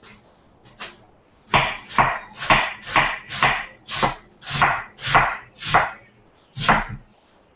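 A knife slicing through a head of cabbage: a run of about ten firm chops, roughly two a second, starting about a second and a half in, with a short gap before the last one.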